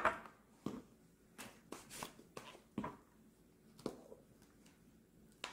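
A small spice jar being handled and shaken: a string of light, separate taps and clicks, about eight of them scattered through a few seconds.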